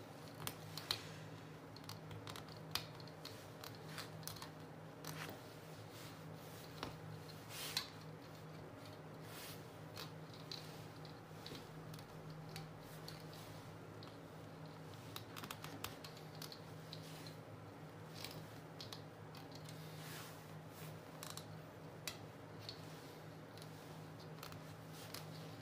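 Thread being wound around small nails on a string-art board: faint, irregular ticks and scratches as the thread catches and snaps against the nail heads, over a low steady hum.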